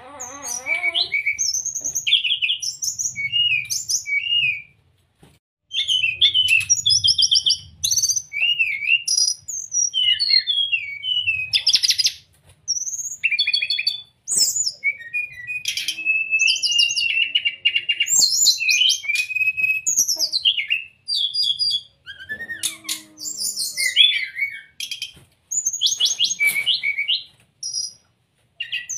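Brown-chested jungle flycatcher singing a long, varied song of quick whistled phrases and rapid trills, in bursts broken by short pauses.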